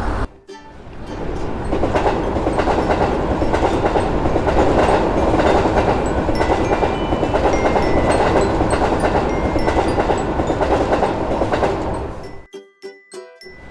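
A train running past with a steady rumble and rattle of wheels on the track. It cuts out briefly about half a second in, and again for about a second near the end.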